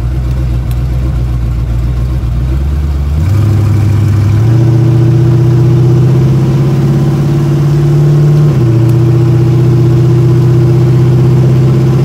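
The 427 twin-turbo small-block Chevy V8 of a 1969 Camaro, running with its exhaust uncorked, heard from inside the cabin while driving on light throttle. Engine speed steps up about three seconds in and settles into a louder, steady drone, with a slight drop in pitch about eight and a half seconds in.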